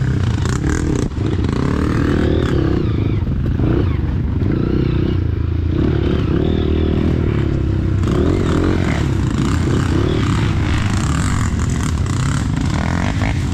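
Honda CRF dirt bike's single-cylinder four-stroke engine running at low speed, revving up and down over and over as the throttle is worked, with rattling and scraping from the bike and the undergrowth.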